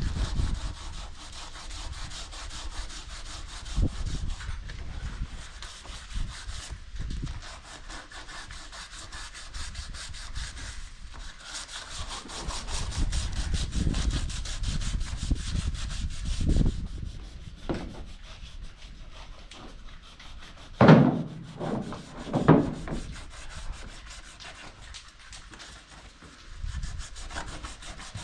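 Sandpaper sanding truck bodywork, a continuous scratchy rubbing that swells and eases with the strokes. Two louder knocks come about three-quarters of the way through.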